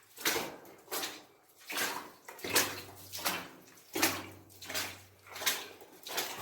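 Footsteps splashing and sloshing through shallow water, a steady walking rhythm of about one step every three-quarters of a second.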